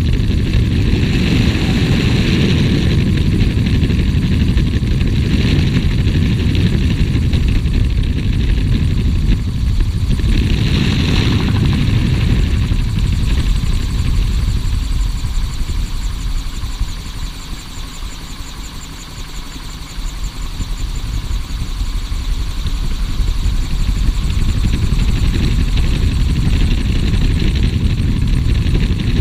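Gyrocopter in flight: steady engine and airflow noise with a heavy low rumble. It dips in loudness for a few seconds a little past halfway, then builds back up.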